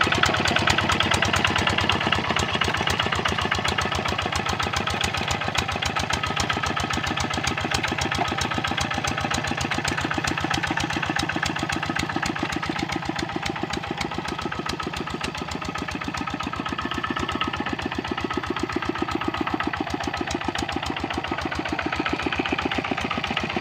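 Kubota RD65 single-cylinder diesel engine of a walk-behind hand tractor running steadily with a rapid, even chugging of firing strokes. It eases off slightly about midway and picks up again.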